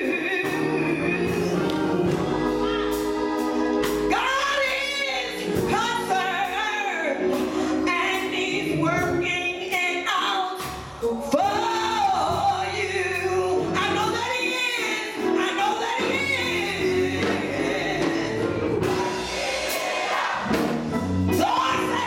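Gospel choir singing, with a woman leading the song through a handheld microphone over the choir.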